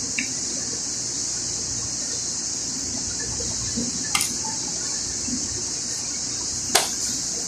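A steady high-pitched hiss, with three short sharp clicks, the loudest about a second before the end, from an electric drill armature being handled and rubbed clean.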